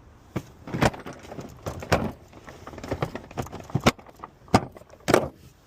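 A series of about a dozen irregular knocks and metallic clinks, the loudest about a second in, two seconds in, and near the end.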